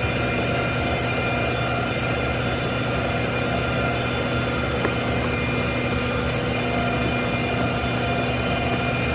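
Steady drone of an idling vehicle engine, holding one pitch throughout.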